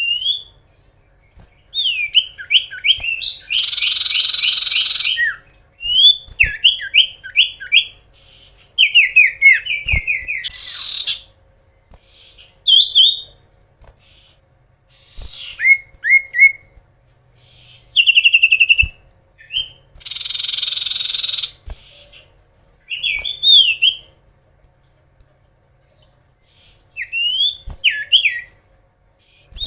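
Common iora (cipoh/sirtu) singing in bursts: phrases of quick, repeated down-slurred whistles, broken twice by a longer harsh rasping call, about four seconds in and again around twenty seconds.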